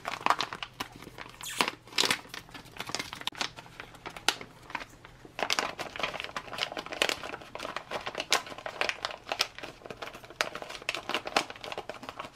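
Foil ration pouch being torn open and its foil wrapper peeled back from a pound cake, crinkling and crackling irregularly, busiest in the second half.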